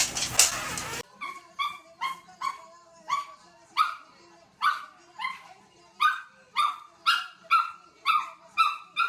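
A loud stretch of sound cuts off sharply about a second in. Then a dog gives a steady string of short, high barks, about two a second, each dropping a little in pitch.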